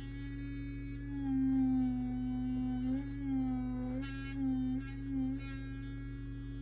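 Vibrating electric toothbrush switched on and buzzing steadily, its pitch sagging and recovering several times as it scrubs under load.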